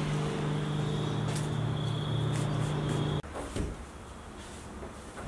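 A steady mechanical hum with a low tone and a faint high whine over it, cutting off abruptly about three seconds in. After that, only faint light knocks.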